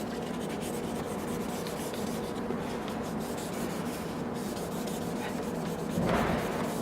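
Drill running with a P800 grit sanding disc rubbing over a plastic headlamp lens, a steady motor hum under the scuffing of the abrasive. A brief louder swell comes about six seconds in. This is the middle grit stage of restoring a hazed, sun-faded lens.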